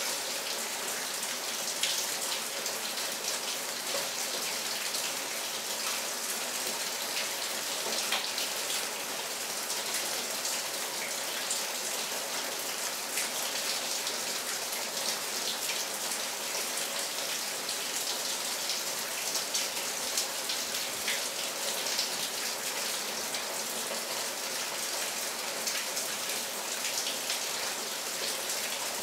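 Steady rain falling: a constant hiss with many small, sharp drop impacts scattered through it.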